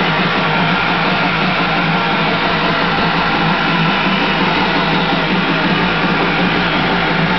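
Kawasaki JS550 stand-up jet ski's two-stroke twin engine running steadily and loudly after a rebuild. The owner hears a rough rumbling from the rear, which he thinks is bad pump-housing bearings, and a loud pinging from the carburetor or cylinder-head area, which he wonders could be pre-ignition.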